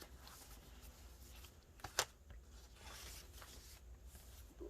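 Paper pages of a handmade journal being turned and handled, a soft rustling with one sharp click about two seconds in.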